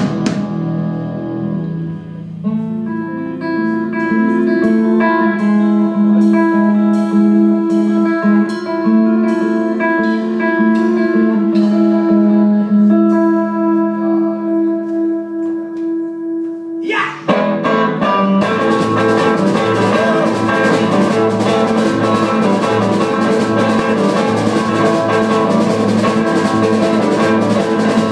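Live rock band playing an instrumental passage: electric guitar chords ring out over light, evenly spaced ticks. About 17 seconds in, a quick rising slide leads into the full band with drums playing loud and dense.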